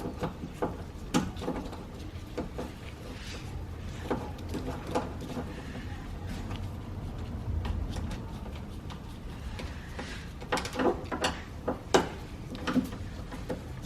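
Scattered metallic clicks and clinks of a T30 Torx driver being fitted to and turning the bolts that hold a car door's lock actuator, with a quicker cluster of sharp clicks near the end.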